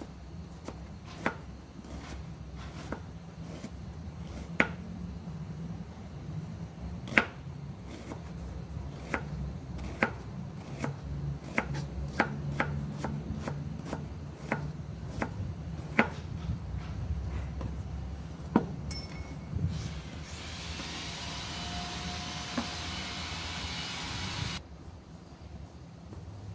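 Chef's knife slicing an onion on a plastic cutting board: irregular sharp knocks of the blade hitting the board, about one or two a second. Near the end a few seconds of steady hiss that cuts off suddenly.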